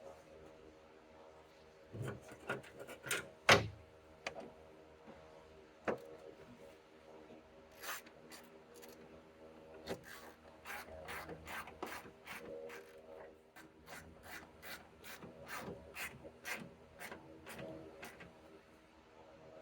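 Ratchet wrench clicking as a 5mm fastener on the exterior door handle's bracket is run in, a run of short, fairly even clicks about two to three a second, with a few louder knocks of tool on metal in the first few seconds.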